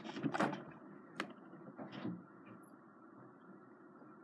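Quiet, empty room with a faint steady hum, broken by a few faint knocks and one sharp click in the first couple of seconds.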